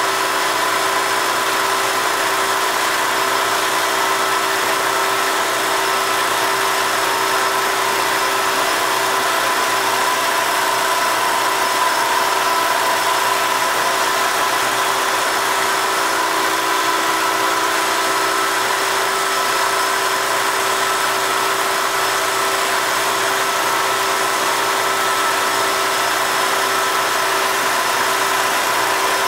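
Tool post grinder's 18,000 RPM spindle and the lathe spinning the three-jaw chuck, running steadily as the small grinding stone is fed into the chuck bore: a steady whine over a lower hum, with no change through the pass. The stone is barely engaging, too little to take a real cut.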